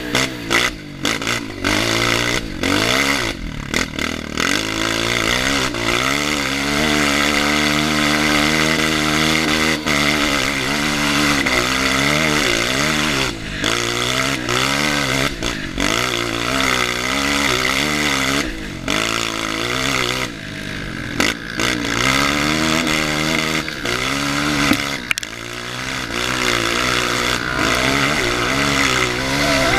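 Honda CRF230 dirt bike's single-cylinder four-stroke engine running under load on a muddy trail. Its pitch rises and falls again and again as the throttle is worked and gears change, with a few brief dips.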